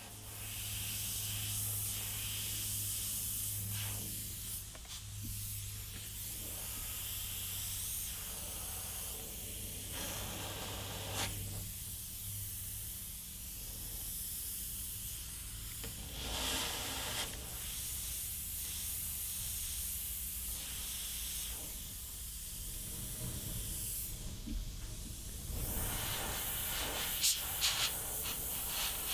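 Gravity-feed airbrush hissing as it sprays paint, the air-and-paint hiss swelling and easing as the trigger is worked.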